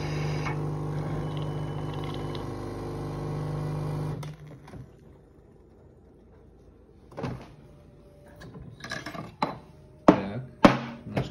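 Schaerer Coffee Club super-automatic coffee machine running as it dispenses a cappuccino, frothed milk and espresso together: a steady hum with a low pitched drone that stops abruptly about four seconds in. After a pause, a few sharp knocks and clicks follow as the glass is handled.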